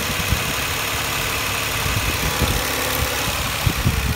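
1999 Infiniti I30's 3.0-litre V6 idling steadily with the hood open, under a continuous hiss. A few short low thumps break in, about a third of a second in and again near the end.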